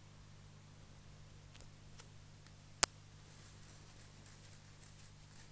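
A faint steady low hum and hiss, with a few light ticks and then one sharp, loud click just under three seconds in.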